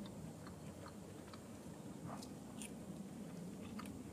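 A person chewing a bite of campfire-grilled turkey meat, faint, with a few small clicks of the mouth and food.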